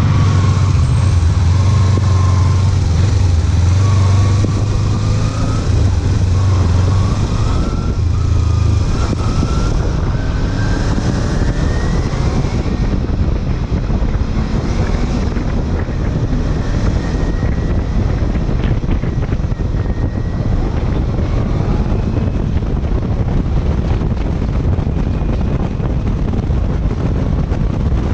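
Kawasaki Ninja 250 parallel-twin engine pulling away from a stop and revving up through the gears, its pitch rising again and again in the first half. After that the bike runs steadily at road speed, largely covered by wind noise on the microphone.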